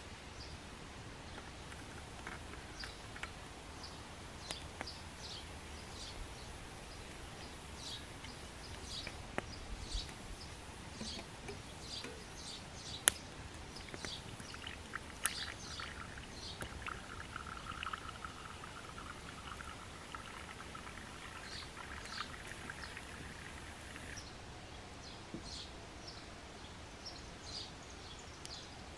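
Small wood campfire under a frying pan, crackling with frequent small ticks and one sharp snap about thirteen seconds in. About halfway through, a soft sizzling hiss joins for roughly ten seconds.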